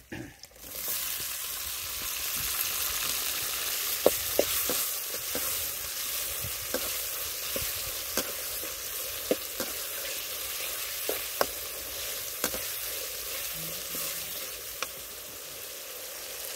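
Chopped tomatoes sizzling in hot oil in a metal kadai, the hiss starting about a second in as they hit the pan. A steel ladle clinks and scrapes against the pan a dozen or so times as they are stirred.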